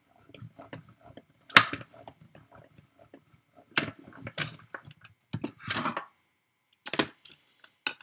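A Mini Stampin' Cut & Emboss hand-cranked die-cutting machine being cranked, feeding a metal die and cardstock between plastic cutting plates through its rollers. The cranking gives a run of small clicks with several louder plastic clacks and knocks as the plates go through and are lifted out.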